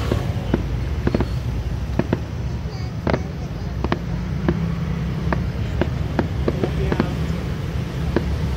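Fireworks going off in irregular sharp cracks and pops, one to three a second, over a steady low rumble.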